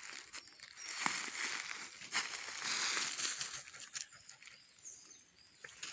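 Footsteps rustling and crunching through dry leaves and twigs on a forest floor, in irregular swells with small cracks. A few faint bird chirps come in around the middle.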